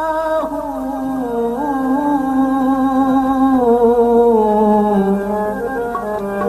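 A male singer holding one long note that slowly slides down in pitch, over a steady accompanying drone, in a dhamaal, a Sufi devotional song.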